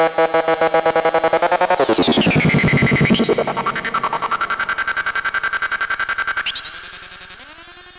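Musonics Vanilla 5U modular synthesizer playing a loud, buzzy tone that pulses rapidly, several times a second, while a knob is turned by hand. The tone sweeps down until it is dark and low about two seconds in, then a bright whistling resonance climbs back up, holds, and rises again near the end.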